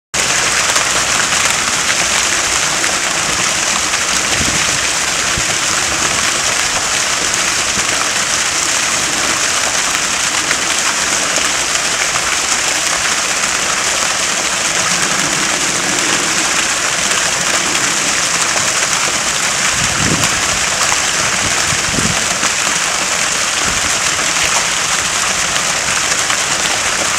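Fountain water jets splashing steadily: an even, high hissing rush of falling water, with a couple of faint low thuds.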